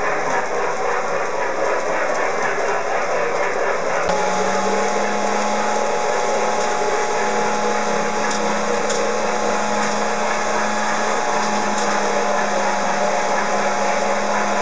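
Steady whirring of a small electric motor. About four seconds in, a steady low hum comes in on top of it.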